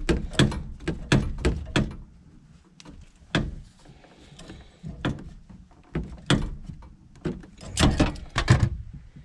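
Tools knocking and clanking against the furnace's gas valve and pipe fittings: sharp metallic strikes in irregular bursts, a quick run of them at the start and another cluster near the end.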